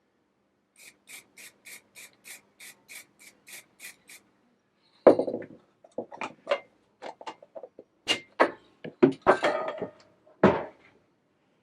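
Quick, even rubbing strokes, about four a second, as a part is worked by hand, followed from about five seconds in by a run of louder, irregular knocks and clatter as parts are handled.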